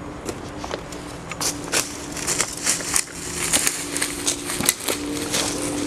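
Footsteps crunching through dry leaf litter and twigs on a forest floor: irregular crackling steps that grow louder and closer together from about a second and a half in.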